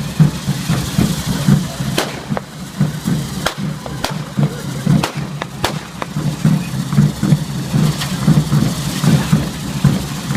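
Ground-level fireworks: sharp firecracker bangs at irregular intervals, sometimes two within half a second, over a steady low din.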